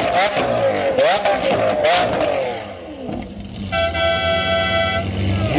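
Lamborghini Aventador's V12 engine revved in quick rising and falling blips, with a few sharp cracks between them. It eases off about halfway, then holds a steady high note for about a second.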